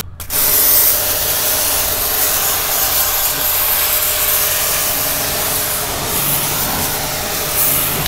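Starq W8 2800 W high-pressure washer jet spraying onto a car tyre and wet paving, a steady loud hiss of water spray as it blasts mud off the tyre. It starts after a brief gap, with a faint steady hum underneath.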